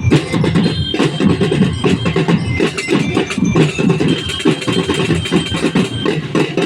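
Music carried by fast, dense drumming with a steady driving beat.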